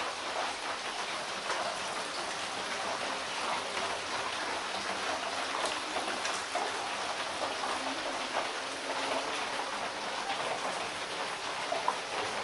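Steady rain falling on a corrugated metal roof, many small drop ticks over a constant hiss.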